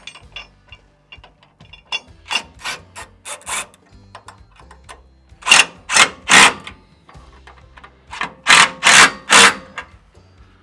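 Ratcheting wrench tightening bolts on a metal bracket: short rasping clicks in three bursts of a few strokes each, the later two louder.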